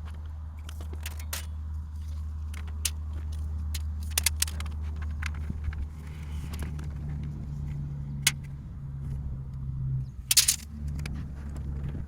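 A motor or engine running with a steady low hum, a second higher tone joining about halfway through. Scattered sharp clicks and knocks of handling run over it, with a loud cluster of knocks near the end.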